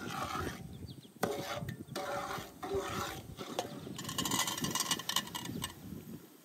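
Metal kitchenware being handled at a large aluminium pot of syrup: a spoon and metal bowls clinking and scraping, with a sharp clink about a second in and a brighter, hissing rattle lasting a couple of seconds in the second half.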